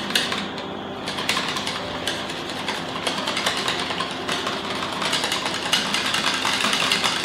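Wire whisk beating rapidly against a glass bowl, whisking a crème fraîche and tarragon dressing, with fast, even clattering strokes.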